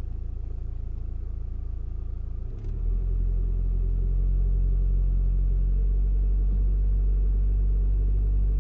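2001 VW Passat's 1.9 TDI four-cylinder turbodiesel idling steadily, not yet warm, with a running note that the owner suspects holds a misfire. About two and a half seconds in there is a click, and the engine sound becomes louder and stays steady.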